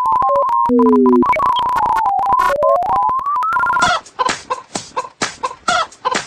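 Glitchy electronic intro music: a single synthesizer tone that holds, stutters, jumps in pitch and slides upward, broken by crackling cut-ups. About four seconds in it gives way to a run of short choppy pulses, about four a second.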